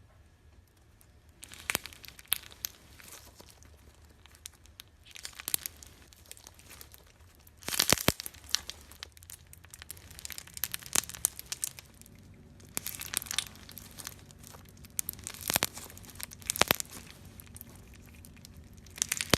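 Slime being squeezed and stretched by hand, giving irregular bursts of crackling and popping clicks every second or two.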